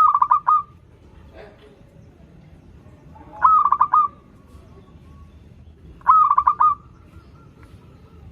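Zebra dove (perkutut) cooing: three short trilled coo phrases, each a quick run of notes, about three seconds apart.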